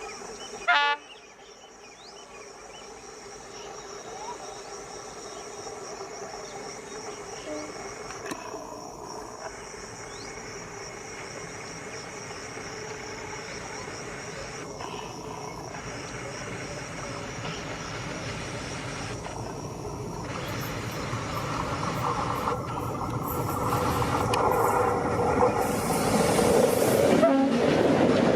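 Diesel-hauled train running on the track, its rumble and wheel noise growing steadily louder, with a brief loud toot about a second in.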